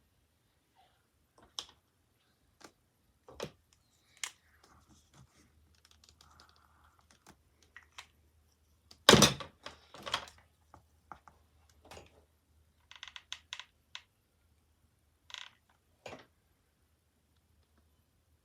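Scattered light clicks and taps of small wooden Scrabble tiles being handled and stuck onto a craft box, with one louder knock about nine seconds in and a quick run of clicks a little later.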